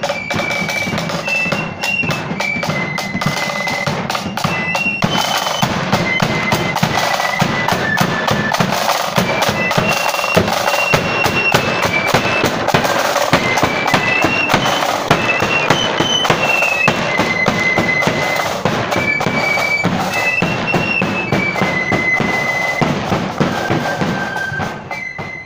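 Marching flute band playing a tune: massed flutes carry a high, stepping melody over rapid snare drums and a bass drum. The music fades away near the end as the band passes.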